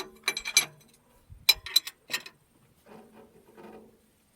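Hand tools and small metal parts clinking while an excavator's fuel injector is being worked on: a handful of sharp clicks and clinks in the first two seconds or so, then faint handling noises.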